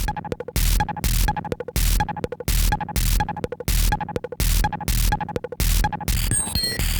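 Electronic music with a heavy, regular beat: loud noisy full-range hits about twice a second over pulsing bass, with a brief glitchy stutter near the end.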